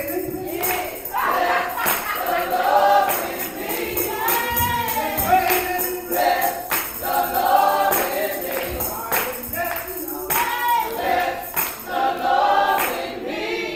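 Gospel choir of women singing, a lead voice on a microphone with the group behind, over a steady beat of hand claps and jingling percussion.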